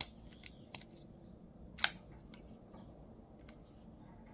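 Vosteed Raccoon crossbar-lock folding knife clicking as it is handled and its blade is opened. There is a sharp click at the start, a few lighter ticks, and the loudest, sharpest snap just under two seconds in.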